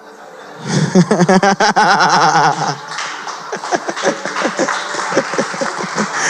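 Laughter after a joke in a sermon: a loud burst of rapid, wavering ha-ha pulses lasting about two seconds, then lighter scattered chuckling.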